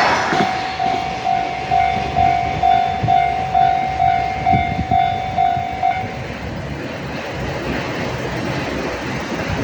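Japanese railway level crossing's electronic warning bell ringing at about two strokes a second, then stopping about six seconds in: the train has cleared and the warning ends. Under it, the rumble of the train fades away.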